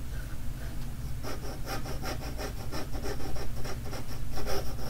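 A 2H graphite pencil scratching across paper in quick, repeated short strokes, starting about a second in, as a head outline is sketched.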